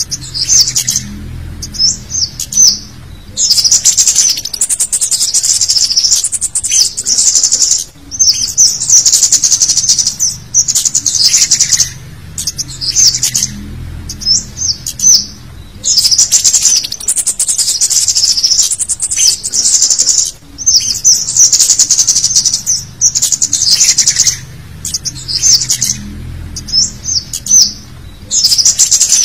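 Looped lure-call recording of the cit kemade flowerpecker: very high-pitched, rapid chattering 'cit' notes in dense bunches of a second or two, broken by short pauses and single sharp notes. The same sequence comes round again about every twelve seconds.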